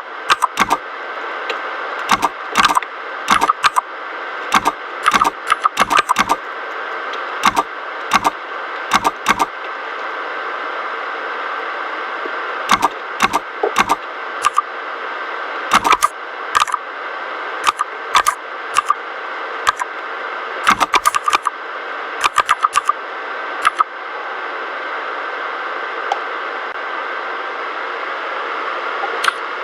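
Typing on a mechanical keyboard with red linear switches: irregular runs of sharp key clacks with short pauses between them, over a steady background hiss.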